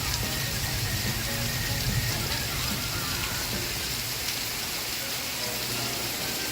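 Steady, even rain on a surface, with faint music underneath.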